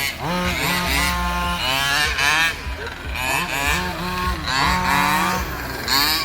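Several radio-controlled cars' motors whining and revving, their pitch rising and falling quickly and overlapping.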